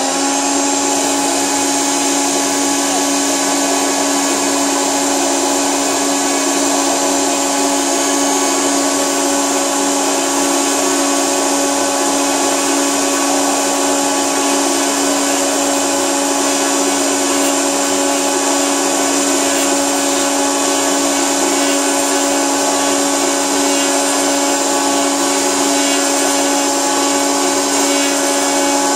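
Router spindle motors of an MFX9512-4A four-spindle copy milling machine running at full speed: a loud, steady whine.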